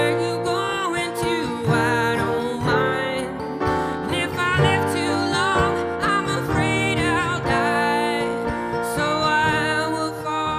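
Acoustic folk string band playing live: plucked strings with a lead melody line that slides and wavers in pitch.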